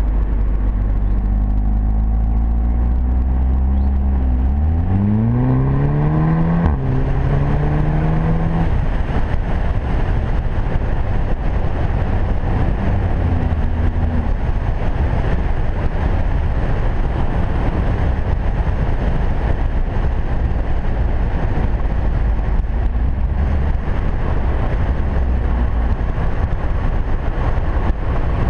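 Audi TT-S's turbocharged four-cylinder engine and exhaust heard from outside the car: running steadily at first, then accelerating with a rising note, a brief break at a gear change about seven seconds in, and a second pull. After that the car cruises, and steady road and wind noise covers most of the engine sound.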